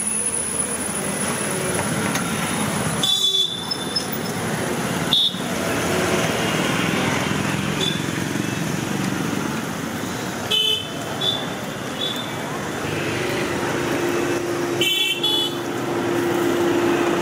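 Charcoal grill at a street stall with a steady hiss of background noise, and several short metallic clinks of a metal spatula against the wire grill basket, each ringing briefly. A steady low hum starts about two-thirds of the way through.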